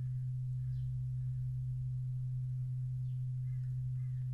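A steady low sine tone at about 127 Hz, generated by a Max/MSP cycle~ oscillator, holding one unchanging pitch.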